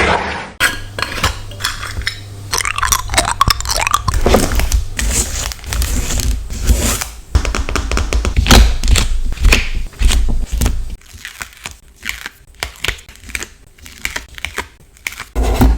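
Scenery stickers being peeled off their backing sheets and handled close to the microphone: crackling, tearing and scraping of paper and plastic, with taps. The sounds are dense at first and thin to sparser clicks after about eleven seconds.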